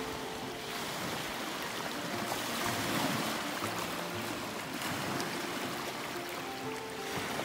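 Choppy lake water washing and splashing against shoreline rocks in a steady rush, with quiet background music underneath.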